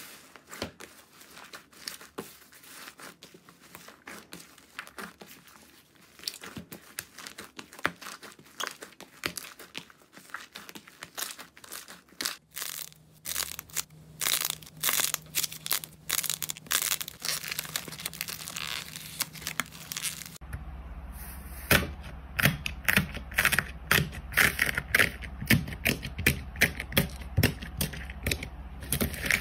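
Hands squeezing and kneading slime, a dense run of small crackles, pops and squelches. From about two-thirds of the way in, louder, sharper pops come a few times a second.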